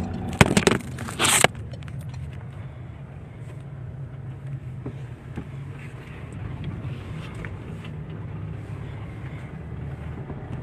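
Car driving, heard from inside the cabin: a steady low engine and road hum. Between about half a second and a second and a half in come a few sharp, loud knocks and a scrape.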